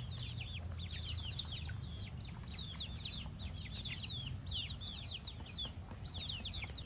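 Many birds chirping: a dense, overlapping run of short high chirps that each sweep downward in pitch, over a low steady rumble.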